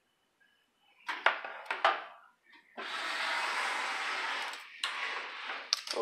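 Handling noise: a few knocks and clicks, then about two seconds of steady rustling, with another click near the end.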